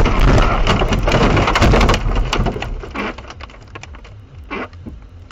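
A car ploughing off the road through trees and brush: loud scraping and crunching with many hard knocks for about two seconds, then dying down to scattered knocks and crackles.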